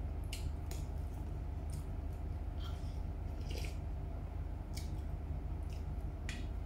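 A person eating bakso meatball soup up close: chewing and wet mouth sounds with several short sharp clicks spread through, over a steady low hum.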